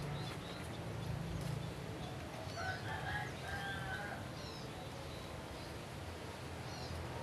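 A rooster crowing once, a drawn-out call starting about two and a half seconds in, over a steady low hum with faint, short high chirps scattered through.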